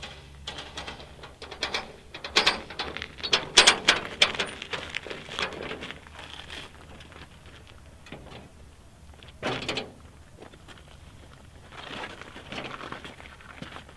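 Footsteps crunching on gravel and scuffing as people move about, in an irregular run of short crackly steps and scrapes, with one louder thud about nine and a half seconds in.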